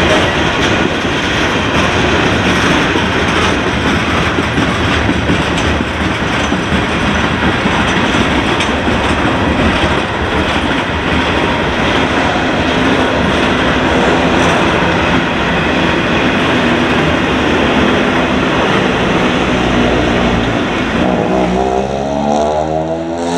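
Freight cars rolling past (tank cars, flatcars and empty double-stack well cars): a steady, loud rumble of steel wheels on rail with a clickety-clack over the rail joints.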